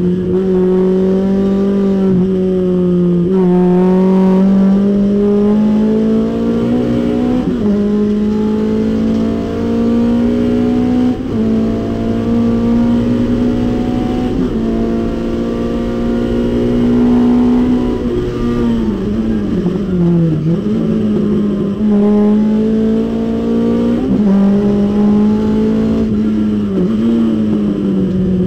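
Datsun 510 race car's engine under hard throttle, heard from inside the cabin. Its note climbs steadily in pitch with a few brief dips along the straight, drops sharply under braking a little past halfway, then climbs again as the car accelerates out of the turn.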